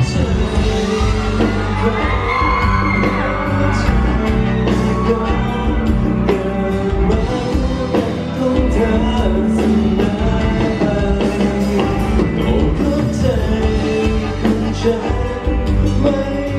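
A live band playing a pop song in a large hall, with a voice singing over it and some whooping from the audience.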